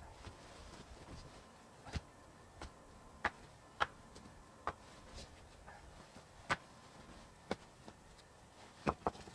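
Rocks clacking against one another as they are set in place on a stone fire ring: about nine sharp, irregular knocks, two of them close together near the end.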